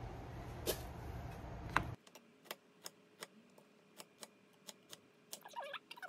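Chef's knife chopping squash on a wooden cutting board: sharp taps of the blade striking the board, about two or three a second.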